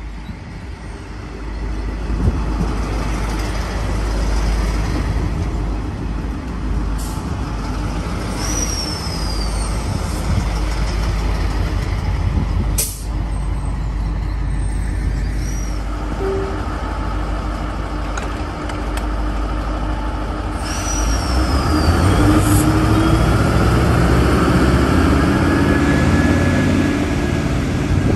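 Diesel train running close by with a heavy low rumble that grows louder about three-quarters of the way through. A few sharp clicks and brief high falling squeals sound over it.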